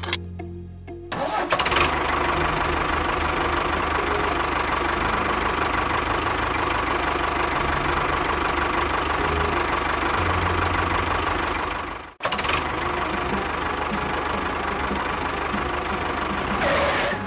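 An engine running with a steady low chugging beat. It starts about a second in, cuts out for a moment around twelve seconds in, and stops near the end.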